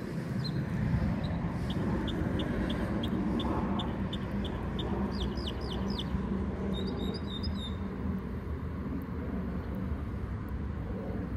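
A bird calling: a short high note repeated about three times a second, then a quick cluster of chirps and a different chirping call near the middle, over a steady low rumble.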